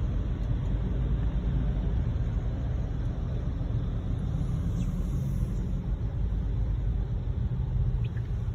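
Steady road and tyre rumble heard inside a car's cabin while driving on a wet road.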